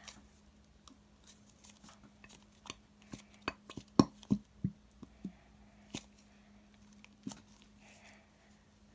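Scattered light clicks and taps of slime-making things being handled: the glue bottle, bowl and spoon. The loudest tap comes about four seconds in, with a faint steady hum underneath.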